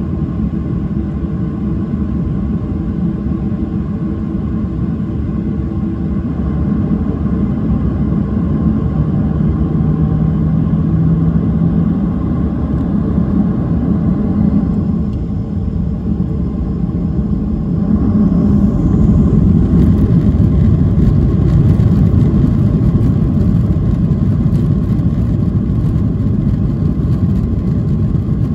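Cabin noise of a Boeing 737-800 heard from a window seat behind the wing: a steady rumble from its CFM56-7B engines as the jet moves along the ground. The noise grows louder about two-thirds of the way through as thrust is brought up for the takeoff roll.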